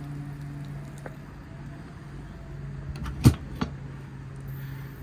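A steady low hum, with a sharp metal clack about three seconds in and a lighter click just after: the latch of a steel service-body compartment door being worked open.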